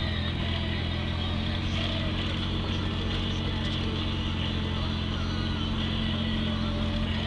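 Steady engine and tyre noise inside a moving car's cabin: a constant low drone that holds level throughout.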